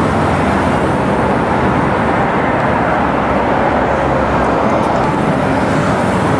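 Thames river cruise boat under way: its engine runs with a steady drone, mixed with rushing air and water noise on the open deck.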